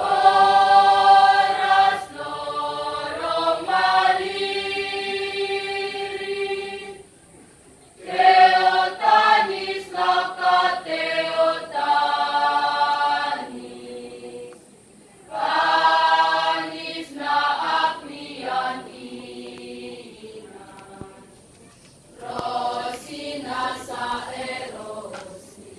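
A school choir of girls and boys singing together under a conductor, in four sung phrases with short breaks between them.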